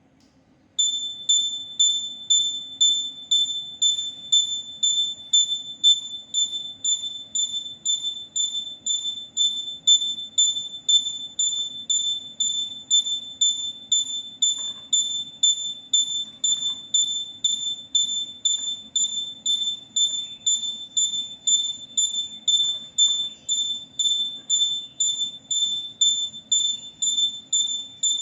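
Electronic buzzer beeping at a high pitch, about two beeps a second, starting about a second in, over a faint steady low hum.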